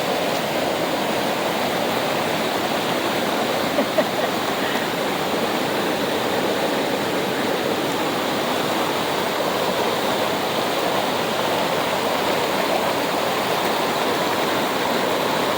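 Waterfall rushing steadily, the water running high after rain. There are a couple of faint knocks about four seconds in.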